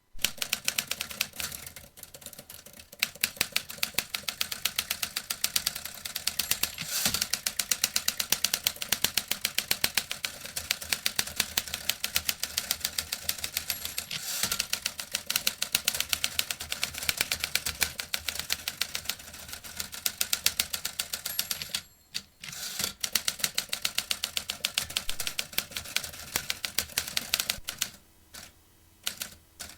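Vintage typewriter being typed on: a fast, steady run of key clacks that starts suddenly, breaks off briefly about 22 seconds in, and thins to scattered keystrokes near the end.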